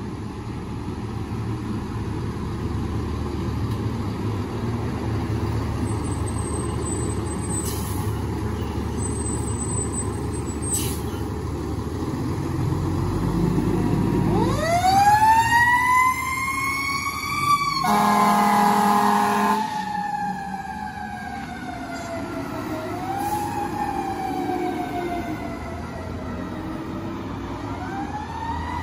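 A fire engine's diesel engine rumbles as it pulls out. About halfway through, its siren winds up into a wail, and a horn blast lasting about a second and a half cuts in. The siren then slowly falls and is wound back up twice as the truck drives away.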